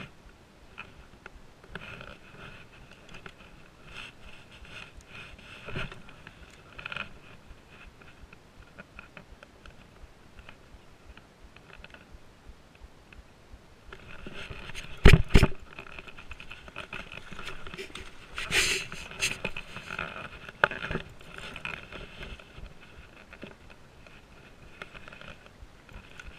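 Close handling noise from hands working fishing tackle: irregular rubbing, scrapes and light clicks, with two sharp knocks about fifteen seconds in.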